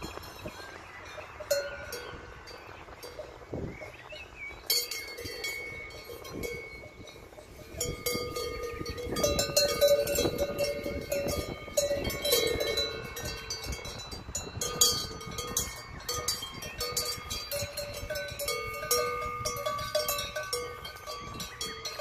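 Metal cowbells on cows' collars clanking and ringing irregularly as the cows move. The clanking starts about five seconds in and is busiest a few seconds later.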